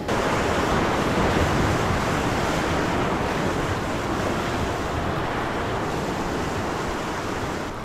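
Ocean surf rushing on the shore, a dense steady roar that eases off slightly over the seconds, with wind buffeting the microphone.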